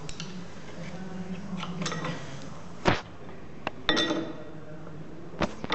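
A few sharp metal clinks and knocks of tools or parts being handled, the loudest about three seconds in, over a low steady hum that fades out at about the same point.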